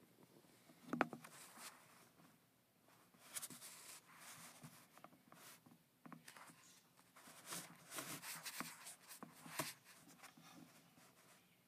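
Faint, intermittent scratchy rustling and crackling of loose coconut-fibre substrate as a king snake shifts its coils around a mouse, with a sharp click about a second in.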